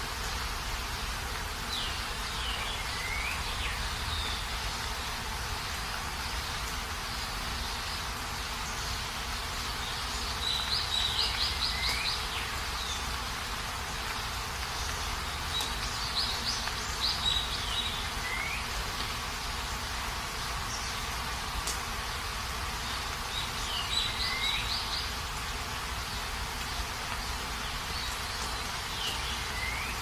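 Steady hiss of countryside rain, with a bird singing short phrases of rapid notes and falling whistles every six seconds or so.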